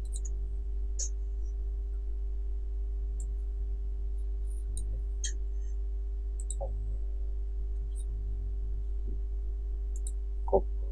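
Scattered computer mouse clicks, a few seconds apart, over a steady low electrical hum.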